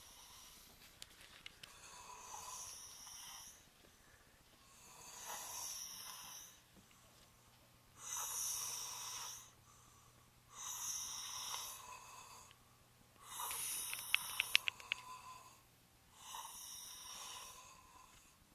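Sleepers snoring heavily, about six rasping snores two to three seconds apart. One snore about fourteen seconds in breaks into a fast clicking rattle, the loudest moment.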